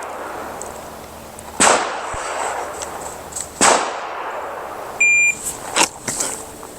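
Two pistol shots about two seconds apart, each with a long echoing tail. About five seconds in comes a short electronic beep from a shot timer, then a few lighter clicks and knocks.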